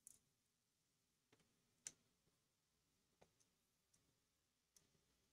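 Near silence with a few faint, scattered clicks from small phone parts and screws being handled during a smartphone teardown.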